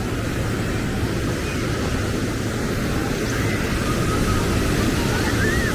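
Steady roar of ocean surf with wind buffeting the microphone.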